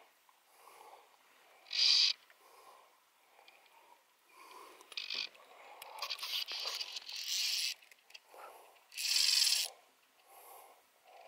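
A fly reel's click drag buzzing in short runs, four times, as a hooked fish pulls line off the reel. The longest run, about a second and a half, comes past the middle. Softer low puffs come between the runs.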